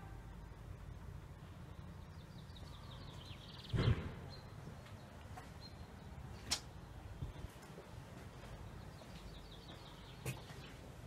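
A door thuds shut about four seconds in, over a steady low rumble. A sharp click follows a couple of seconds later, and another comes near the end.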